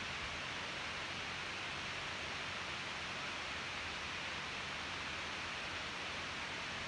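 Steady, even hiss of background noise, unchanging throughout, with no distinct events.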